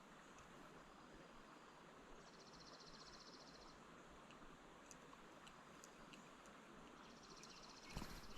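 Near silence: faint steady hiss of the creek, with a high, fast-pulsing trill heard twice, once a couple of seconds in and again near the end. A louder rustling noise starts just before the end.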